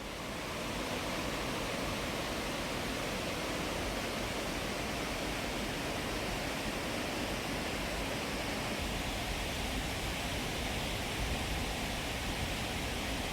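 Steady rushing of a waterfall and river, an even roar of falling water with no change.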